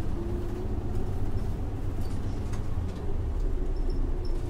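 Isuzu Erga city bus's 6HK1-TCC six-cylinder turbo-diesel engine and drivetrain running steadily, heard from inside the passenger cabin, with a deep hum and a faint steady whine.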